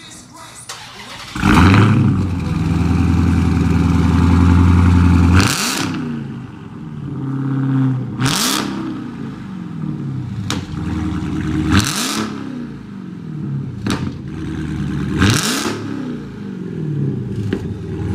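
Straight-piped Dodge Charger Hellcat's supercharged 6.2-litre Hemi V8 with the mid-muffler and resonators deleted. It starts up about a second and a half in and holds a steady high idle. It is then blipped four times, each rev falling back toward idle, with a few sharp pops in between.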